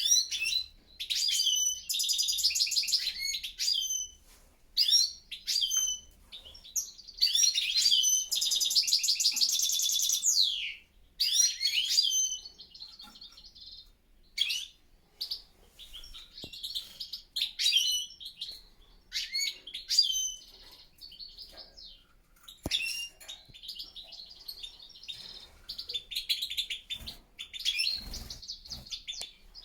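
European goldfinches singing: repeated bursts of bright, twittering song with fast trills, broken by short pauses, the loudest phrases in the first dozen seconds.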